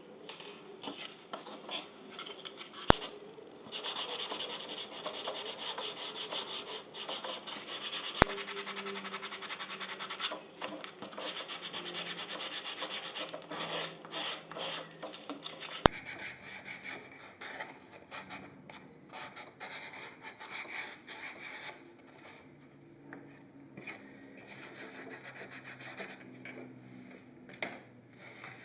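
Quick, continuous rubbing and scraping strokes from hand craftwork on foam (polystyrene) plates, louder in the first half. A few sharp clicks come through.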